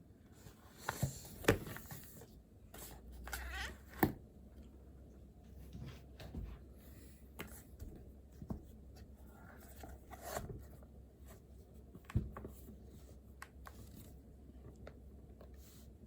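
Writing by hand on paper: short scratching strokes and scattered light taps and clicks, over a low steady hum of room tone.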